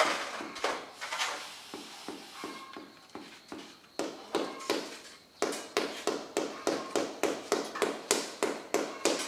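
Fast, steady tapping with a hand tool on a hard floor at a construction site, about three taps a second. The tapping thins to fainter, sparser taps for a few seconds in the middle, then picks up again.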